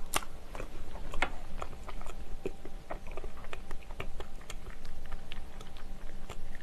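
Close-miked chewing of a soft brioche filled with cream cheese, blueberries and strawberries: soft wet mouth sounds with many small lip and tongue clicks, one sharper click just after the start.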